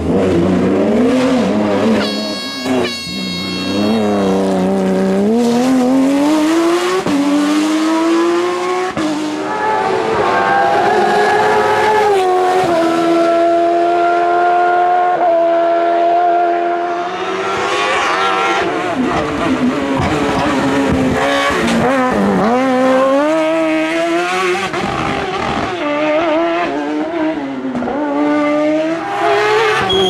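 Race car engine revving hard. Its pitch climbs and drops sharply again and again, holds a steady high note for a few seconds in the middle, then swings up and down quickly near the end.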